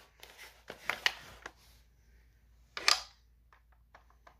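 Clicks and knocks of a plastic toy blaster being handled and swung, with one sharp, louder burst about three seconds in, followed by a quick run of short clicks.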